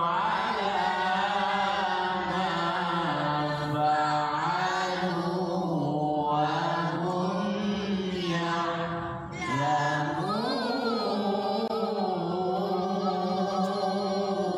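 Quran recitation (tilawah) chanted by a single male voice in long, ornamented melodic phrases, with a brief break about nine seconds in before the next phrase begins.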